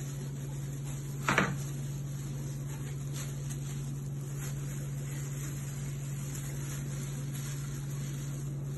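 A steady low hum, with one short sharp sound about a second and a half in.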